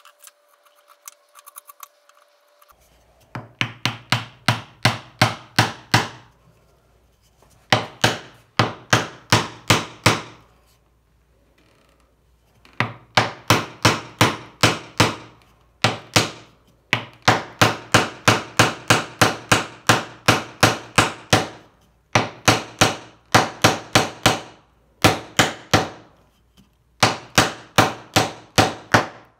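Quick hammer taps on wood, seating a wooden tenon down into its mortise: runs of about four blows a second, each run a couple of seconds long and growing louder, with short pauses between.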